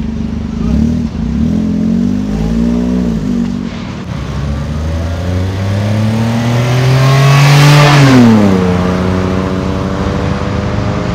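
Perodua Axia's 1.0-litre three-cylinder engine through an aftermarket stainless steel full exhaust, pulling away and accelerating hard with a long rise in pitch that grows loudest about eight seconds in, then the pitch drops quickly as the throttle eases and settles to a steady lower note.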